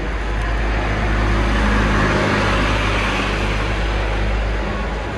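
Road vehicle noise: a steady low rumble with a wash of noise, growing louder around the middle as if a vehicle passes close by.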